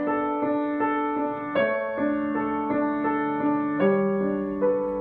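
Upright piano playing a repeating broken-chord accompaniment, a new note struck about every 0.4 seconds over held notes. The chord changes twice, at about a third of the way through and again past the middle.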